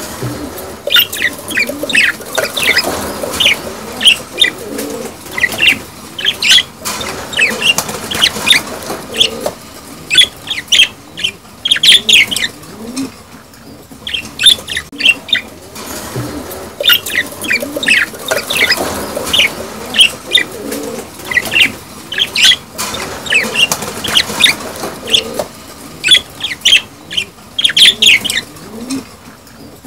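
A flock of budgerigars chattering: dense, rapid chirps and warbles overlapping with no pause, the lively calling of budgies in breeding condition.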